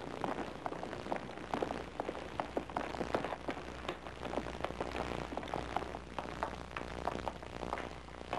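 Dense, irregular crackling and popping, several clicks a second, over a steady low hum: surface noise of a worn old film soundtrack.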